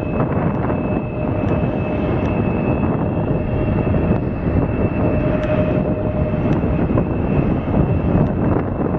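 Turbofan engines of an Embraer E-Jet regional airliner running as it rolls along the runway: a dense rumble under a steady high whine and a fainter, lower steady tone.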